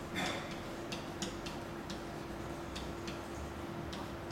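Pen tip writing on a whiteboard: a run of short, irregular taps and scratches as letters are written, over a steady hum.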